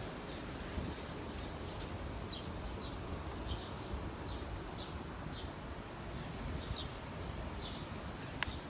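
Steady wash of Gulf surf and wind on the microphone, with faint short high chirps repeating about once or twice a second.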